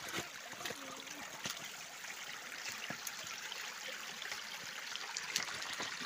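Small forest stream trickling steadily, running with runoff after days of heavy rain, with scattered clicks and rustles of footsteps and brushing vegetation.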